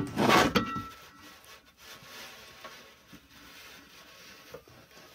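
A loud scraping rub that lasts under a second, right at the start. It gives way to quiet room tone in a reverberant hall, with a few faint small knocks.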